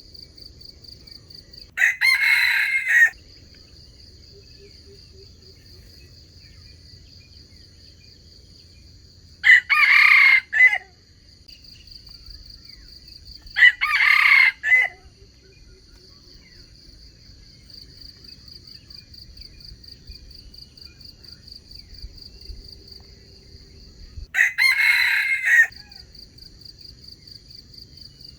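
Red junglefowl (wild chicken) rooster crowing four times, each crow short, about a second long, over a steady high drone of insects.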